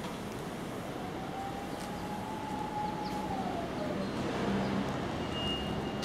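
Steady hum of street traffic, with a whine that holds its pitch for a couple of seconds and then slides down and fades. A thin, steady high tone comes in near the end.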